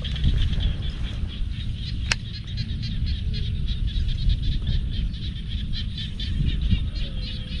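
Open-air ambience: an uneven low rumble under rapid, rhythmic high chirping, with one sharp click about two seconds in.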